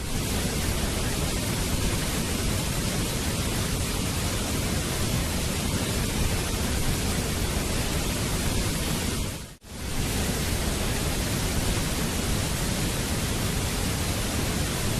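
Waterfall: water pouring and splashing in a steady, dense rush. It fades out and back in briefly about nine and a half seconds in.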